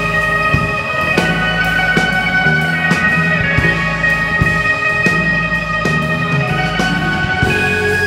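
Live rock band playing an instrumental passage: electric guitar, bass and drum kit over long held chord tones, with regular drum hits.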